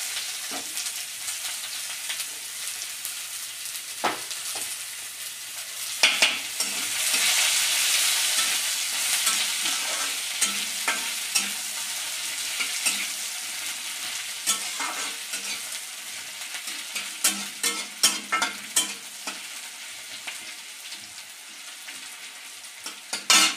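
Chopped onion sizzling as it fries in hot mustard oil in a metal kadai, with a metal spatula scraping and clicking against the pan as it is stirred. The sizzle swells about six seconds in and then slowly eases off, while the spatula clicks come in quick clusters later on.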